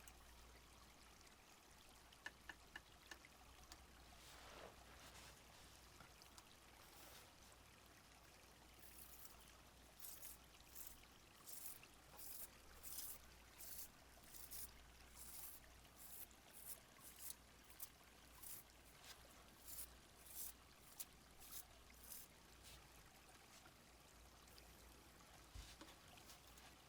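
Faint, steady trickle of a small flowing stream. From about a third of the way in until past the two-thirds mark, a run of short, soft swishes comes about once or twice a second over it.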